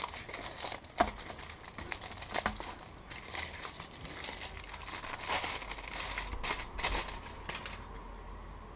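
Aluminium foil wrapper of a dark chocolate bar crinkling and crackling as it is peeled open by hand, with one sharp crack about a second in. The crinkling stops near the end.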